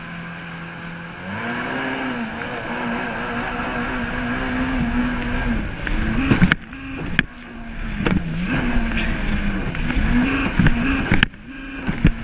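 Kawasaki jet ski engine revving up about a second in and running at speed, its note dipping and climbing as the throttle and the waves change, over the rush of water spray. Twice the sound briefly drops away with sharp knocks as the hull slaps over the chop.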